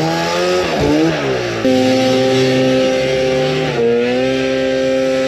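Snowmobile engine running under throttle. Its note wavers and drops in the first second or so, then jumps up and holds steady, with a brief dip near four seconds.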